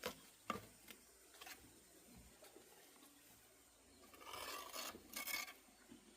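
A few faint knocks in the first second and a half, then a rasping scrape of about a second and a half, in two parts.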